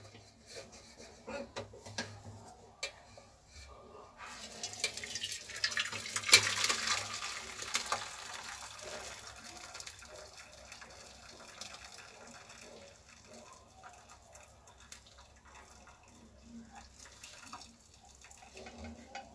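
Curdled milk poured from a pot into a cloth-lined colander, the whey splashing and running through the cloth, loudest from about four seconds in and fading after about eight seconds to a faint trickle and drip.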